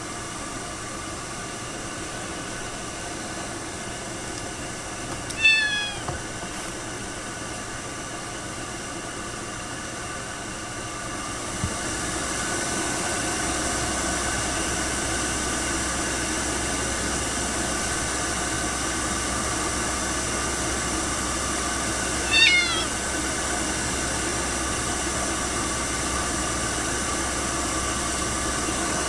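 Ragdoll cat meowing twice, each a short call falling in pitch, about five seconds in and again about seventeen seconds later. The calls sound over a steady hiss that grows louder about twelve seconds in.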